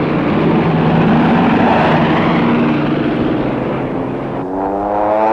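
Piston-engine propeller aircraft running, a steady engine drone with rushing noise. About four and a half seconds in, a stronger engine tone comes in, rising slightly in pitch and then falling as the plane passes.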